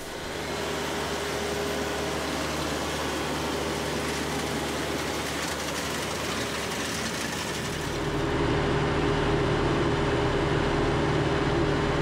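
Tractor engine running steadily while pulling a Gehl 1475 round baler through the hay. The sound gets louder and fuller about eight seconds in.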